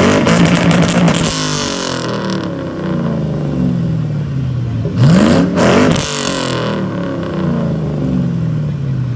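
A performance car engine revved hard, its pitch shooting up and then falling away in steps over the next few seconds, with a loud rasping crackle at the peak. It happens twice, the second rev about five seconds in.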